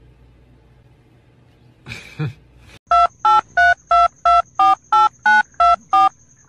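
Touch-tone telephone keypad dialing: ten quick two-tone beeps, about three a second. Before the beeps there is a brief soft noise about two seconds in.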